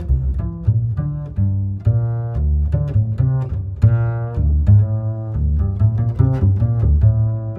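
Background music: plucked and bowed string instruments over a strong bass line, in quick, evenly paced notes.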